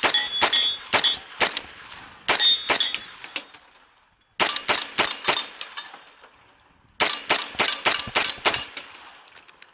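SIG MPX fired in four quick strings of about five to seven shots each, with short pauses between strings, and hit steel targets clanging.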